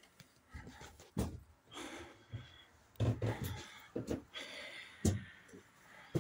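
A person breathing heavily and sighing close to the microphone, with scattered thumps and a few sharp knocks as the phone is carried across the room.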